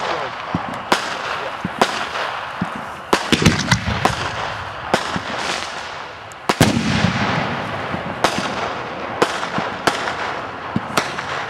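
Fireworks going off: sharp bangs about once a second, with two heavier, deeper booms about three seconds and six and a half seconds in, each followed by a fading echo.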